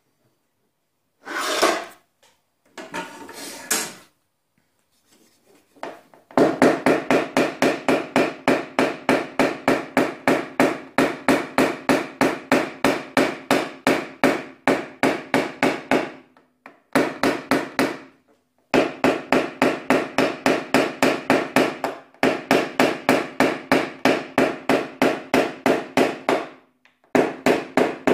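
A PDR knockdown punch is struck with a small hammer against a car door's sheet-metal skin, tapping down high spots to level a dent. The taps come quickly and evenly, about four a second, in runs of several seconds with short pauses, and the panel rings faintly under them. A couple of short scuffing noises come first.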